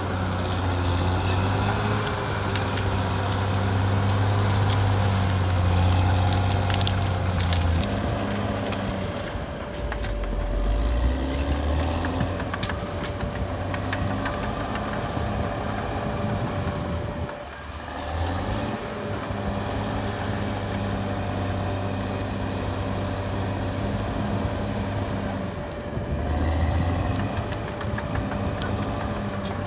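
Caterpillar D6R XL bulldozer's diesel engine running steadily as the dozer works. The engine note drops lower about ten seconds in, eases off briefly around eighteen seconds, then picks up again. Faint high-pitched squeals come and go over it.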